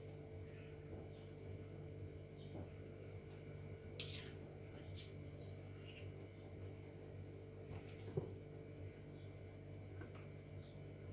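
A metal spoon and teaspoon scooping sticky date-and-cacao mixture and clinking against a glass baking dish: a few faint ticks, one sharp clink about four seconds in and a smaller one near eight seconds, over a low steady room hum.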